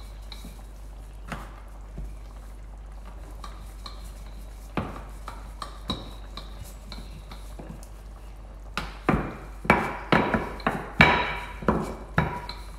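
Wooden rolling pin working naan dough on a stainless steel worktop, knocking against the steel with a slight metallic ring. A few scattered knocks come first, then a quick run of them over the last four seconds.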